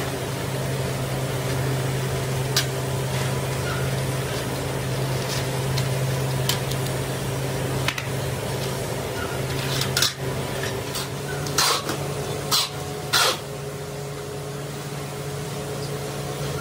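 A steady low machine hum runs throughout. Over it, a woven plastic sack packed with steel chaff cutter blades rustles and clinks as it is handled and folded shut, with a cluster of sharper metal clinks about ten to thirteen seconds in.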